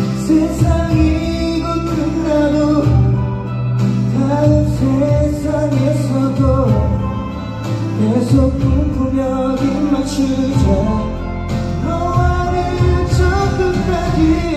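Male vocalist singing live into a handheld microphone over instrumental accompaniment, heard through a concert sound system from the audience.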